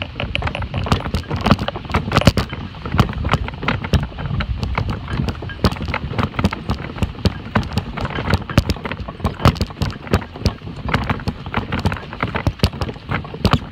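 Dog-drawn wagon rattling and clattering as it is pulled over bumpy, uneven grass, a fast, irregular run of knocks over a low rumble of its wheels.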